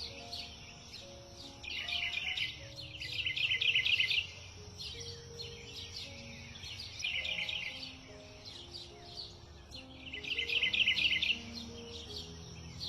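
Songbirds chirping in rapid bursts of song, loudest about two to four seconds in and again near the end, over soft, slow background music.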